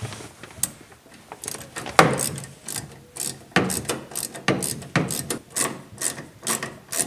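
Small 7 mm ratchet clicking in quick back-and-forth strokes, about three a second from about two seconds in, as it tightens the mounting screw that spreads the bed light's wing clip behind the truck bed wall.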